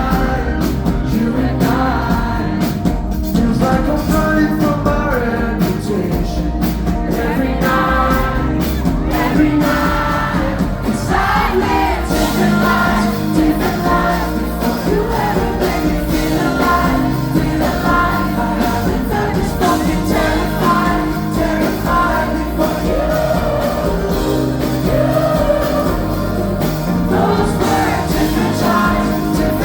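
Live pop song played by a band with lead vocals, heard at concert loudness.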